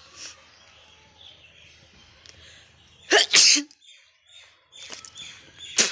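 A person sneezing: one loud sneeze in two quick bursts about three seconds in. A short, sharp burst follows near the end.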